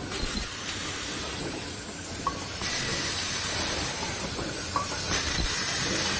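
Paper bowl forming machine running: a steady hiss with mechanical clatter, louder from about two and a half seconds in, and a sharp click twice.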